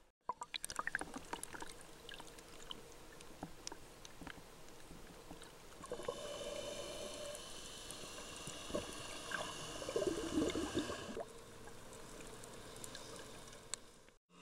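Underwater sound picked up by a camera in a waterproof housing: scattered sharp clicks and crackles, with a stretch of hissing and gurgling water through the middle that swells about ten seconds in.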